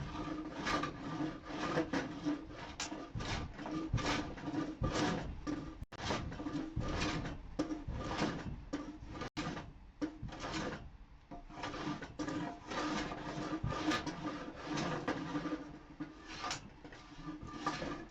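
Hand plane shaving reclaimed pallet wood, in quick repeated strokes of about two a second, with a short lull about ten seconds in.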